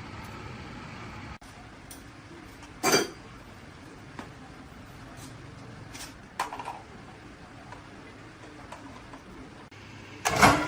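A few sharp metal clanks and knocks, like tools or engine parts being set down and handled on a workbench. The loudest clanks come about three seconds in and near the end, over a low steady hum that cuts off early on.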